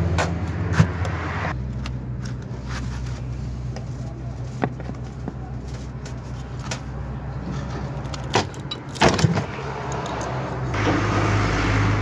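A screwdriver pries at the plastic mounting feet of a washing machine's spin-dryer motor, giving scattered clicks and a few louder knocks of plastic and metal about eight and nine seconds in. A steady low hum runs underneath.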